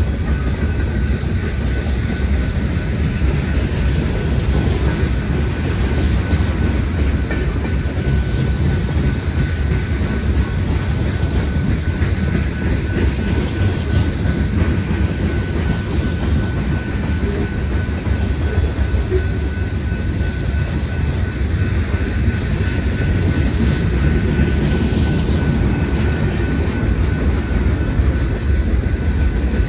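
BNSF freight train's cars rolling past: a steady, loud rumble of steel wheels on rail with a rapid clickety-clack, and a faint steady high tone above it.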